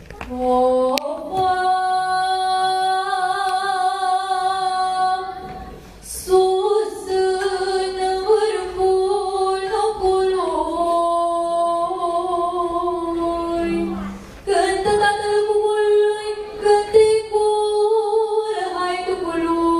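A teenage girl singing a Romanian folk song unaccompanied. She holds long notes and slides between them at the ends of phrases, pausing briefly for breath about 6 and 14 seconds in.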